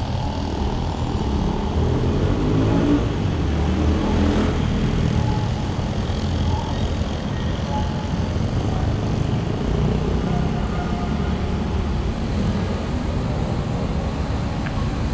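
City street traffic: a steady rumble of passing vehicles, with one going by in the first few seconds.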